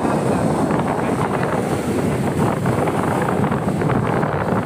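Steady wind noise buffeting the microphone, with waves washing against the rocks.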